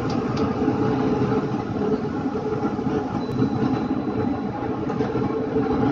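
Steady machinery drone from a shoe-factory assembly line, with its belt conveyor running among other machines. The drone holds at a few low pitches.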